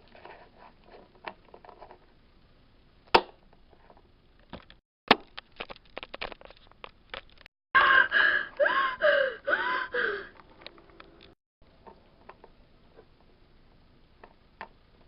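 Scattered clicks and taps of small plastic toy figures being handled, with one louder click about three seconds in. From about halfway, a loud pitched sound slides up and down in pitch several times for about two and a half seconds.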